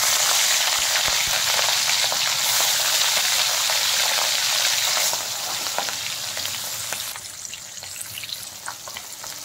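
Fish pieces sizzling loudly as they go into hot mustard oil in a kadai, with scattered spits and crackles. The sizzle starts suddenly and eases off after about five seconds as the oil settles around the fish.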